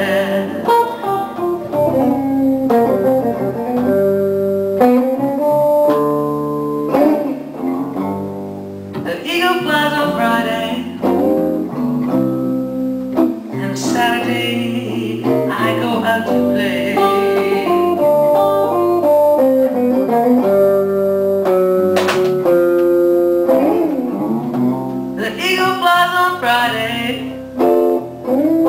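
A live blues band playing a slow blues with no vocal line, electric guitar taking single-note lead lines with bends over a steady bass line.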